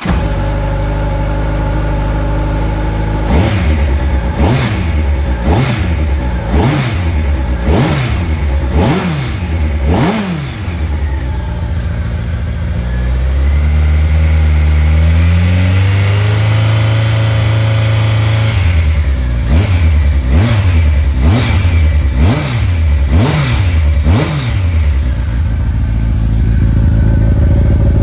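Honda CBR1100XX Blackbird's fuel-injected 1137 cc inline-four breathing through a BEET slip-on carbon silencer, idling just after starting. It is then blipped about seven times in quick succession, held up at higher revs for several seconds, blipped about six more times, and settles back to idle.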